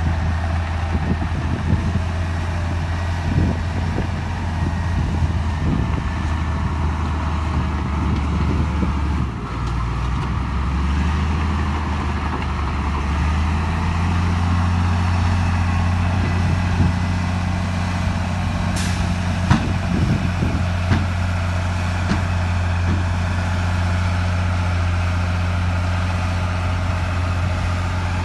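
Heavy diesel earthmoving machinery running: a steady low engine drone that shifts in pitch about ten seconds in and rises slightly about fourteen seconds in, with scattered knocks and clanks and a brief sharp hiss about two-thirds of the way through.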